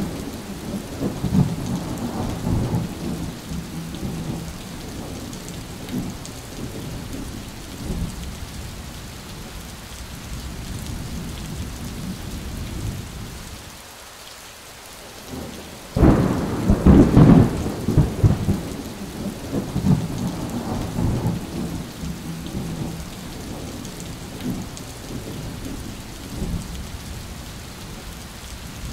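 Heavy rain falling steadily with thunder rumbling. Just past halfway it eases briefly, then a sudden loud thunderclap breaks and rolls on for several seconds before settling back into rain and distant rumbles.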